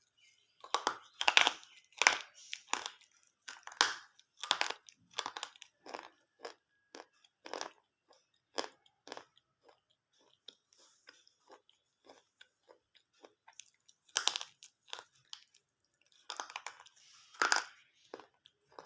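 Slate pencils being bitten and chewed close to the microphone: a run of sharp, dry crunches, densest in the first six seconds, then sparser, with a loud bite about fourteen seconds in and another burst near the end.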